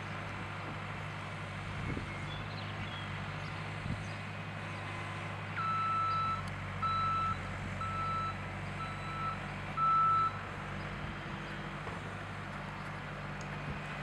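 A vehicle's backup alarm beeps five times, about once a second, over the steady hum of an engine running.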